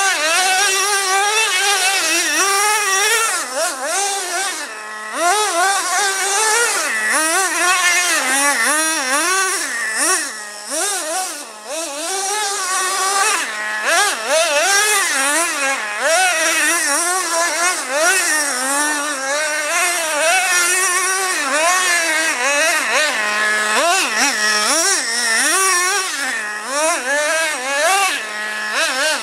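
Traxxas Revo RC monster truck's 2.5 cc two-stroke nitro engine, revving up and down over and over with the throttle as it is driven. Its high-pitched buzz rises and falls continuously, easing off briefly about five and eleven seconds in.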